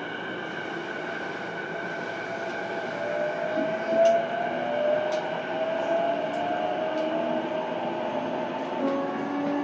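Onboard running sound of an E233-series electric train recorded in a motor car. The inverter and traction motors give a whine that climbs slowly in pitch from about three seconds in as the train gathers speed, over a steady hum and rail noise with a few faint clicks.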